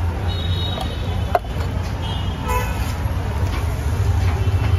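Street traffic: a steady low rumble of vehicles with short horn toots, once shortly after the start and again around halfway, and a single sharp click.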